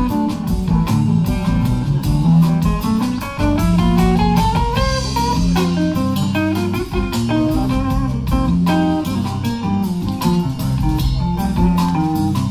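Blues guitar music played from a vinyl record on a VPI Vanquish turntable through a hi-fi system, with plucked guitar notes over a steady beat and notes sliding upward about four seconds in. A listener remarks that the stylus sounds a little dirty.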